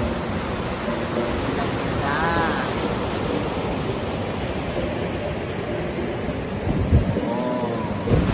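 River water rushing steadily over a low concrete dam weir, a constant even roar of whitewater.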